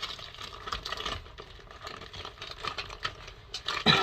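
Heavy tape and wrapping being pulled off a package by hand: irregular crackling, rustling and ticking.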